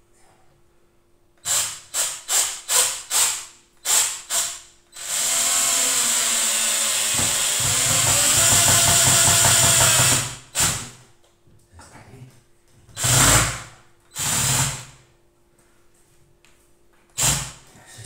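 Cordless drill driving a screw. Several short trigger bursts come first, then one long run of about five seconds in the middle, then a few more short bursts near the end.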